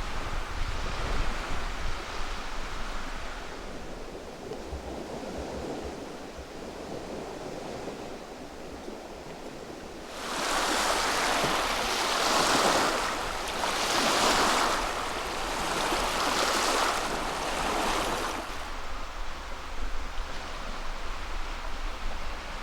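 Lake waves washing onto the shore, with wind rumbling on the microphone; about halfway through, four louder surges of water come in about two seconds apart.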